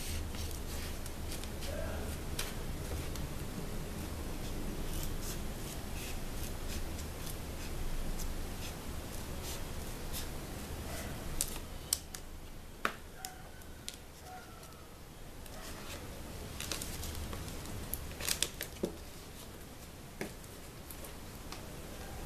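Scissors snipping through a sheet of EVA craft foam, with scattered sharp clicks and the handling of cardboard milk cartons; a low steady hum sits under the first half and fades.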